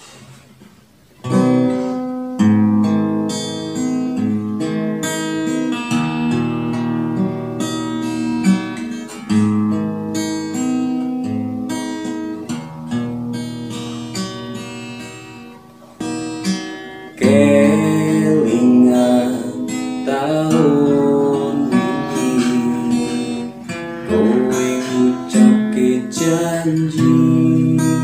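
Acoustic guitar strummed in chords, starting about a second in with a brief pause around the middle. It is picked up through a homemade guitar converter plugged into a V8 soundcard, as a test of how clean the guitar sounds.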